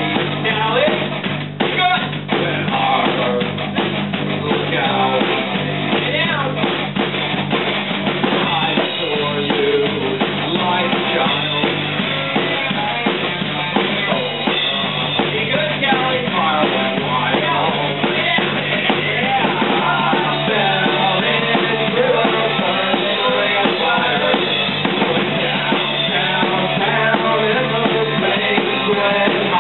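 Rock band rehearsing loud in a room: a drummer playing a full drum kit with cymbals, an amplified guitar, and a singer on a microphone, steady throughout.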